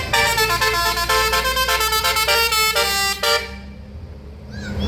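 A tour bus's telolet basuri multi-note air horn playing a quick melody, stepping from note to note several times a second, then cutting off suddenly a little over three seconds in.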